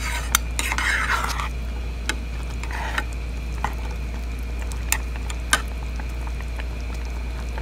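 A spatula stirring chicken in a milky gravy in a pot, with short scrapes and a few sharp clinks against the pot, over a steady low hum.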